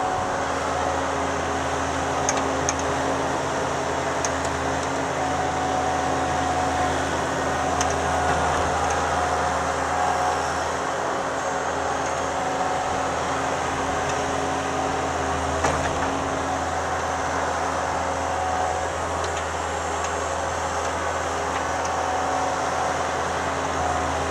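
Thomas 153 skid steer's engine running steadily at a nearly constant speed while it works clearing snow.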